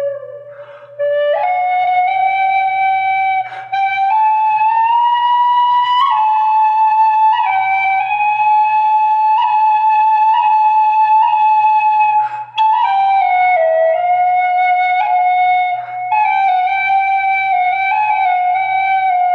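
Celtic flute playing a slow solo melody of long held notes with gentle slides between them, broken by a few short pauses for breath.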